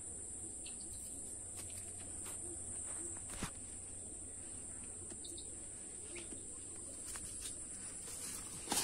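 Steady high-pitched insect chorus, with a few short clicks and knocks from handling a fishing pole and line, the loudest near the end.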